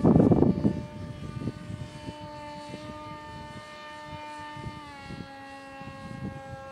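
Beta 1400 RC model airplane's electric motor and propeller whining steadily in flight, the pitch dropping a little about five seconds in. A low rumble of wind on the microphone in the first second.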